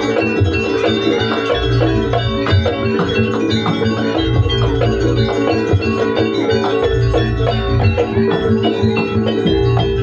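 Jaranan campursari music with ringing gamelan-style percussion and low drum beats over a steady held tone.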